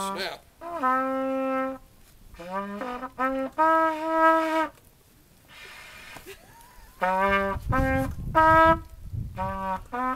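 A brass horn playing a slow bugle-call tune: a run of steady held notes with short breaks between them and a longer pause in the middle. A low rumble sits under the notes about two-thirds of the way through.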